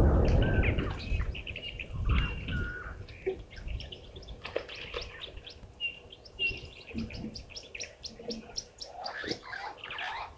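Birds chirping and twittering in many short, high calls and whistled notes, busiest in the second half. A low rumble, the loudest sound, fades out in the first second.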